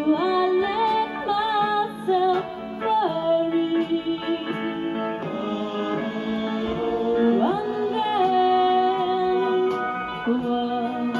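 Live band playing a slow country ballad, with a woman singing lead through a microphone over electric guitar and drums.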